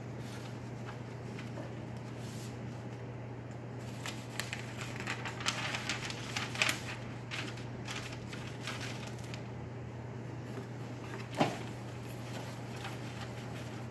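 Sheets of paper and cardboard rustling and crinkling as they are handled and stacked into a plant press, busiest in the middle, with a single sharp knock a little past eleven seconds in. A steady low hum runs underneath.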